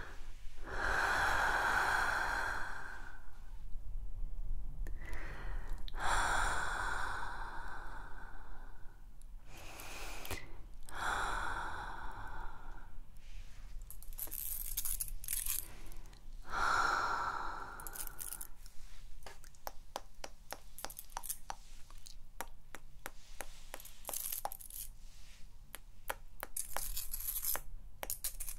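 Close-miked breathy sighs or blows in several long swells, then, from about two-thirds in, rapid sharp clicking and scraping of long metallic claw-style artificial nails tapping against each other.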